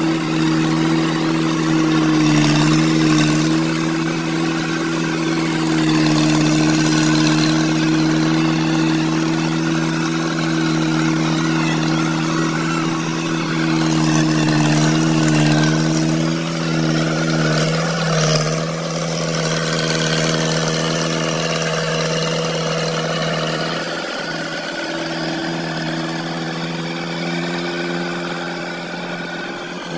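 Mahindra Arjun 555 DI tractor's diesel engine running steadily while pulling a heavily loaded grain trolley, a continuous even drone that wavers about halfway through and eases slightly near the end.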